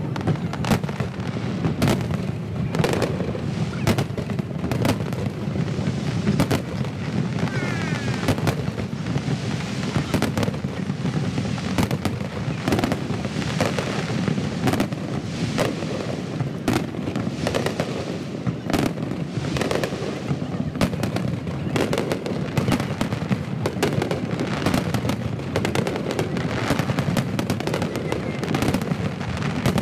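Large aerial fireworks display: a dense, continuous barrage of shell bursts, with sharp bangs several times a second over steady crackling. Sped up to double speed.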